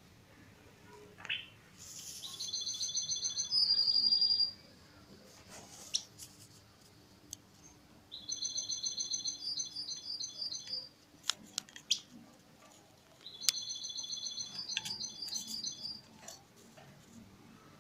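A caged songbird singing in three phrases of rapid, high repeated trills, with short quiet gaps between them.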